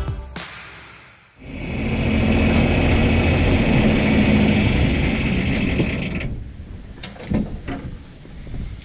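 Closing music fades out, then a machine runs steadily for about five seconds and stops, followed by a few scattered knocks and clatters.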